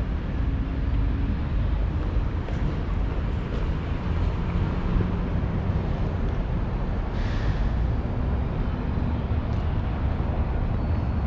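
Steady low rumble of city street traffic, with a brief hiss about seven seconds in.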